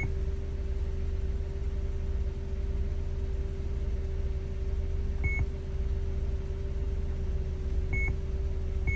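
Aftermarket touchscreen car stereo beeping with short, high confirmation tones as its screen is tapped, about five and eight seconds in. Under it, a steady low hum in the car's cabin from the idling engine.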